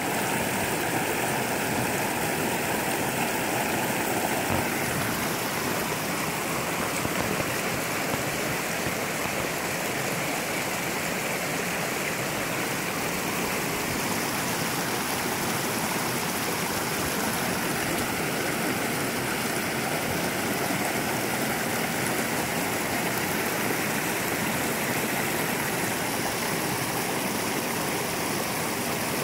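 Mountain creek rushing steadily over rocks and a small cascade.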